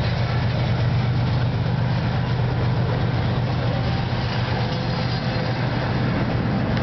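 Double-stack intermodal freight cars rolling past at close range: a steady, loud rumble of steel wheels on rail.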